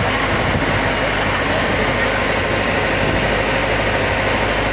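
Engine of a motorized outrigger boat (bangka) running steadily while under way, an even, constant drone heard from on board.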